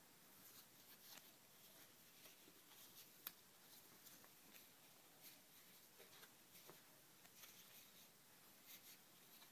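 Near silence with faint rustling and soft ticks of hands fitting small sandals onto a doll's feet, with one sharper click about three seconds in.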